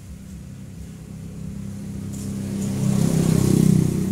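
A motor vehicle's engine passing by, its low running note growing louder to a peak about three and a half seconds in and then starting to fade.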